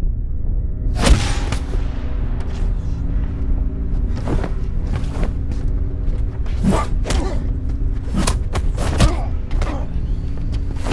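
Film soundtrack: sustained low music notes over a deep rumble, broken by a series of sharp hits and thuds, the loudest about a second in.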